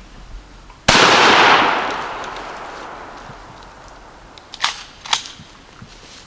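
A single shotgun blast, its report ringing out and dying away over about two seconds. Near the end come two sharp clacks about half a second apart.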